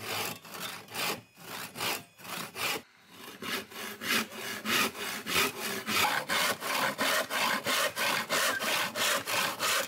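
Handsaw cutting through a softwood board, the teeth rasping back and forth. Slower, uneven strokes in the first three seconds as the cut gets going, then a steady rhythm of about three to four strokes a second.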